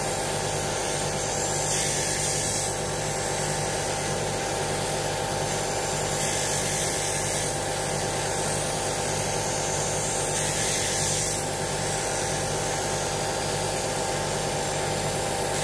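Ferrex belt and disc sander running steadily while a wooden blank is pressed against its sanding disc to round off the corners; the hiss of the grit on the wood swells three times as the piece is worked.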